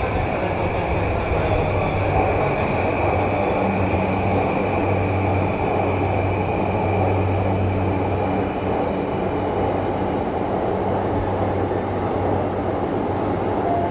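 Electric commuter train at a station platform, running steadily with a low hum. A high steady tone fades away over the first half.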